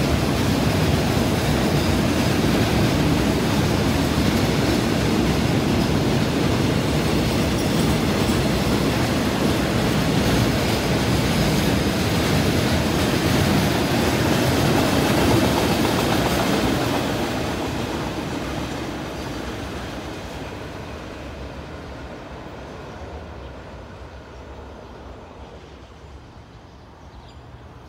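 Container flat wagons of a KTM Kargo freight train rolling past on the rails, a loud steady rumble and rattle of wheels on track. It fades steadily over the last third as the train draws away.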